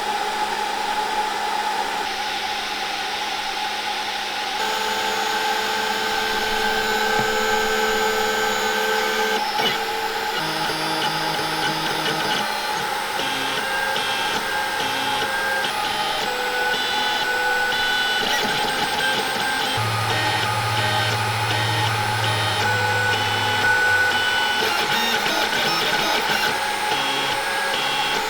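Snapmaker 2.0 A350 3D printer printing: its stepper motors whine at pitches that jump every second or so as the head changes moves, over a steady fan hum.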